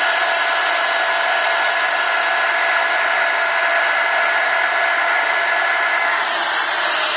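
Electric hot-air blower running steadily on high, a rushing blast with a steady motor whine, used to heat the iPhone 5's microphone and front-camera assembly. The whine fades about six seconds in and the blower cuts off abruptly at the end.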